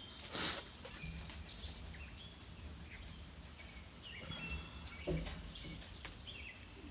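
Birds chirping in short calls in the background over a low steady rumble, with a few light knocks near the start.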